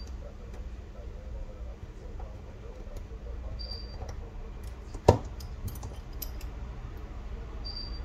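Small metal repair tools ticking and clicking against a smartphone's frame and circuit board during disassembly, with one sharp loud click about five seconds in and a few lighter clicks right after. A short faint high beep repeats about every four seconds.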